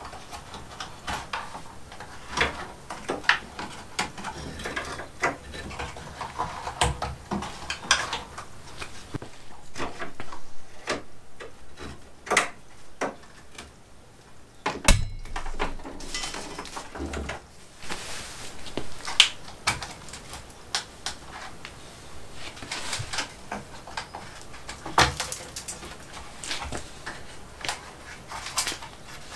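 Irregular clicks, knocks and rustling of plastic parts and wiring being handled as a cable is worked loose from a removed car bumper cover, with a sharper knock about halfway through.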